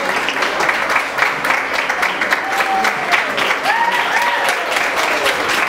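Audience applauding steadily, a dense patter of many hands clapping, with a few voices calling out a little past the middle.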